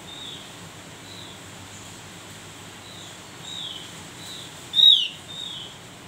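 Javan grey-throated white-eye (opior jawa) calling: a string of about seven short, falling chirps, the loudest one about five seconds in, with a sharp click at the same moment.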